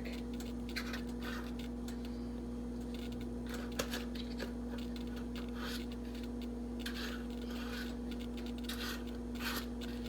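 Spice containers being handled and shaken over the pot: soft, scattered rubbing and scraping with a small click about four seconds in, over a steady hum.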